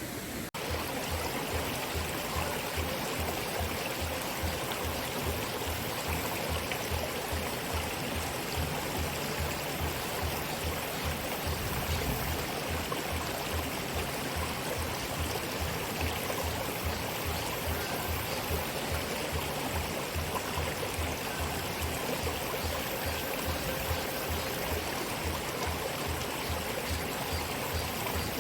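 Mountain stream water rushing and splashing over rocks, a steady wash of noise. Background music with a low, regular beat plays under it.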